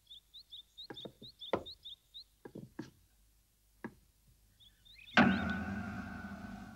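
Small birds chirping, with a series of hollow wooden knocks: clogs stepping down onto wooden boards. About five seconds in, a sudden loud chord strikes and rings out, fading away.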